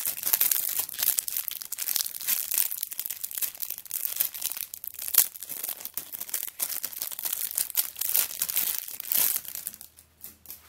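Clear plastic bag crinkling and crackling as the sticker sheets inside are handled and slid around, a dense run of small rustles and clicks that stops near the end.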